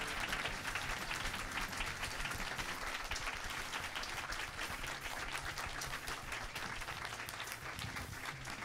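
Audience applauding, a crowd's steady clapping that eases off slightly toward the end.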